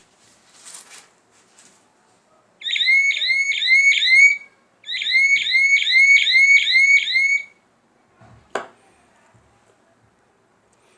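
Small 12-volt security-alarm buzzer sounding a fast warbling siren tone, a rising chirp repeated about three times a second, in two bursts of about two and three seconds. A sharp click follows about a second after it stops.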